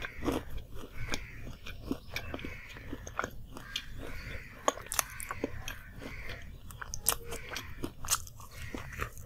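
Close-miked chewing and biting of a fried samosa (singhara): wet mouth sounds with irregular sharp crunches and crackles of the crisp pastry shell, the sharpest crunches in the second half as he takes fresh bites.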